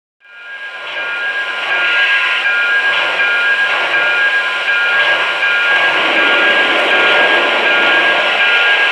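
Steam locomotive sound effects: a loud, steady hiss of escaping steam with a high whine running through it, fading in over the first second or two.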